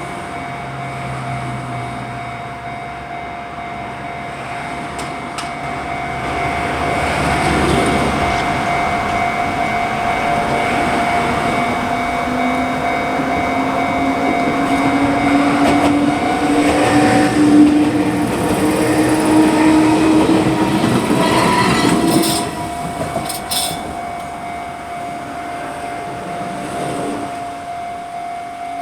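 An Enoden train passing over the level crossing with a rising whine, loudest in the middle and dropping off sharply about two-thirds of the way through. The crossing's warning bell rings throughout and stops at the very end.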